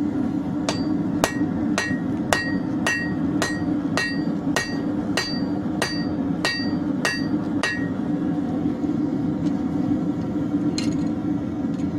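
Hand hammer striking hot leaf-spring steel on an anvil, about two ringing blows a second for some seven seconds, then a few lighter, scattered taps. A steady low hum runs underneath.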